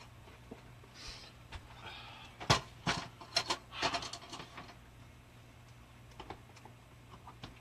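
Several knocks and clunks of kitchen equipment being handled and set down, mostly from about two and a half to four seconds in, with brief rustling around them.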